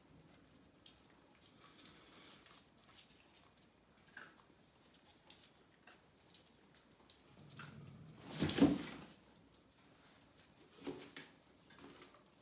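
Puppies' paws ticking and scuffing on a cork floor and against a cardboard box that holds a cat, as they sniff around it. A short, louder scuffle comes a little past halfway.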